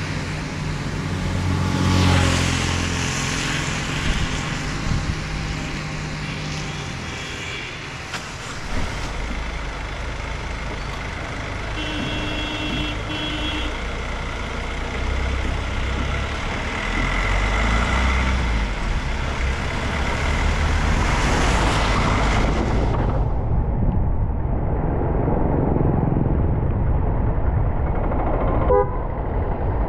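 Motor vehicles passing on a village road, engines running, with a steady low rumble of traffic. About twelve seconds in there are two short beeps.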